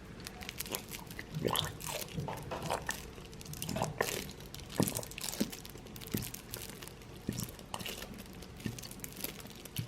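Irregular crackling, crinkling and small clicks from a container of slime ingredient being opened and poured.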